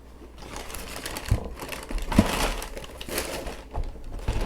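Shoebox packaging rustling and crinkling as a pair of shoes is unpacked by hand, with a few light knocks and clicks.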